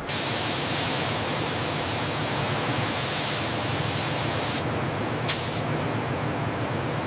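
A steady spraying hiss that cuts in abruptly. About four and a half seconds in, its high part drops away, leaving a duller rush broken by a brief sharp spurt of hiss.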